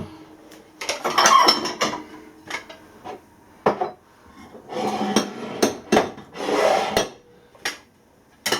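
Ceramic plates and dishes clinking and knocking against each other and the dishwasher rack as they are lifted out, with scattered knocks and a few short scrapes.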